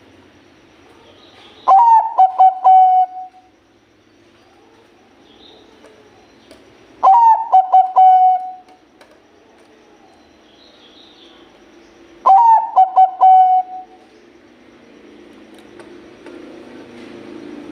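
Zebra dove (perkutut, Bangkok type) singing three song phrases about five seconds apart, each a quick run of staccato coos ending in a longer held note.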